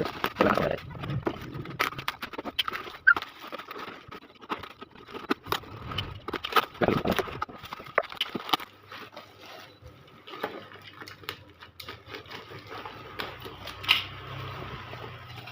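Unpacking handling noise: plastic packaging rustling and crinkling, with irregular taps and knocks as the plastic motorcycle fender parts are handled, one sharp knock about three seconds in.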